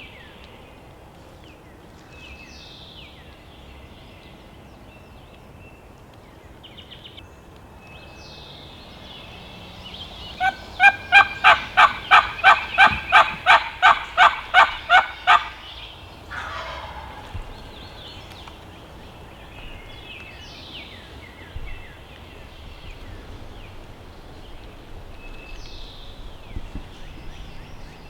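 Turkey yelping: a loud, steady run of about fourteen evenly spaced yelps lasting some five seconds, starting about a third of the way in. Faint songbird chirps come and go around it.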